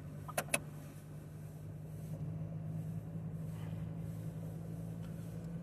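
Steady low drone of a car driving on a snowy ice road, heard from inside the cabin, with two sharp clicks in quick succession about half a second in.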